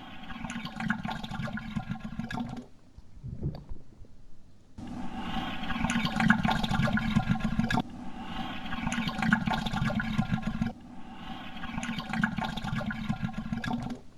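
Recording of sloppy coffee slurping, pitched down in a sampler so it sounds lower and wetter, played back as a string of repeated notes: four long playbacks of about three seconds each, with a short one in between.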